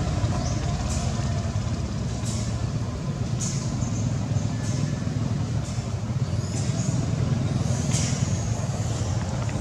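Steady low outdoor rumble, such as distant traffic or wind on the microphone, with a few brief high-pitched ticks or chirps scattered through it.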